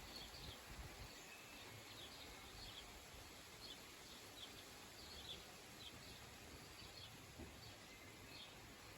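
Quiet ambience: a bird gives short high chirps about once a second over a faint steady hiss, with a low rumble near the start.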